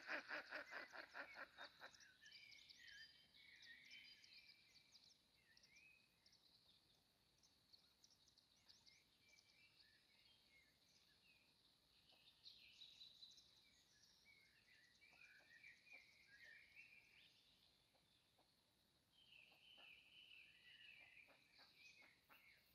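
Wild songbirds chirping and trilling faintly, with short high calls scattered throughout. At the start, a loud, fast run of pulsed calls, about six a second, fades out about two seconds in.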